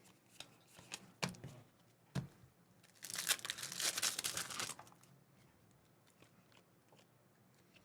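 A few light taps, then the foil wrapper of a trading card pack torn open and crinkled for about two seconds, starting about three seconds in.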